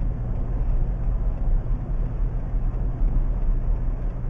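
Steady rumble of a car driving on a paved road, heard from inside the cabin: engine and tyre noise, low and even throughout.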